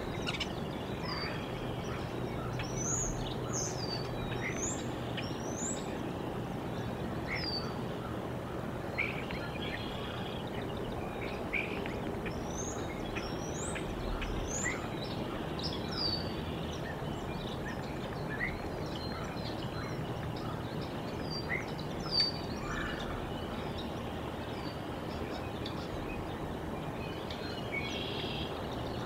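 Small songbirds chirping in the background: many short, high, quick chirps scattered throughout, over a steady outdoor background rush.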